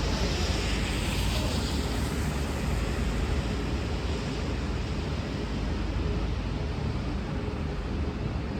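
V/Line VLocity diesel railcar running steadily as it pulls out, with a hiss in the first couple of seconds; no horn sounds.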